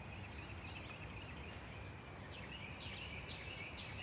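Outdoor background hiss with a bird calling: short, high chirps that fall in pitch. They repeat about twice a second from about two seconds in.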